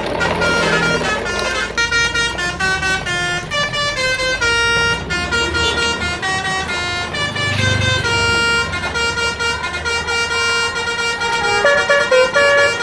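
A musical multi-tone vehicle horn, telolet style, plays a quick melody of short stepped notes throughout.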